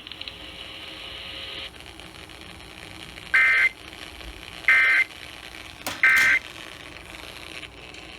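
Emergency Alert System end-of-message signal: three short, shrill digital data bursts about 1.4 seconds apart, heard over broadcast radio. It marks the close of a relayed severe thunderstorm warning.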